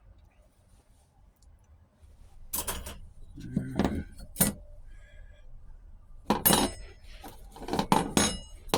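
Metal clutch steels and friction plates from a 4L60E automatic transmission clinking and clattering as they are handled and stacked. It comes in four or five short bursts, starting about two and a half seconds in.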